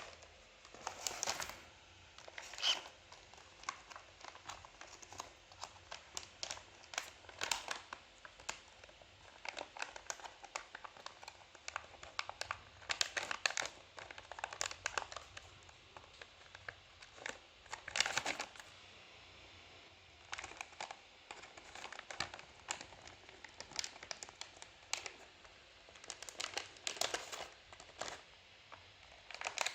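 Irregular bursts of crinkling and rustling, with quiet gaps between them.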